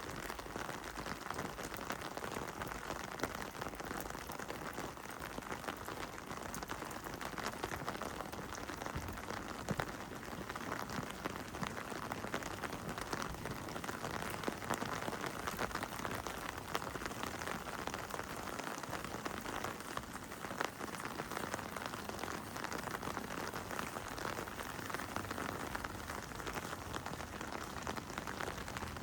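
Heavy rain falling steadily, a dense patter of individual drops.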